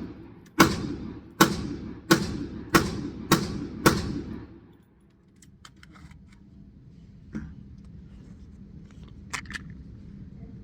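KelTec PMR30 .22 Magnum pistol firing CCI Maximag TNT 30-grain rounds: six shots in quick succession, about two a second, each with a short ringing tail. After the shots, a few light clicks of handling.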